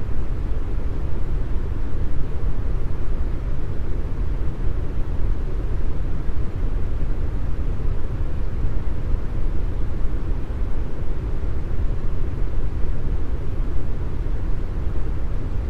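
Deep brown noise: a steady, even hiss with most of its weight in the low bass, thinning out toward the highs.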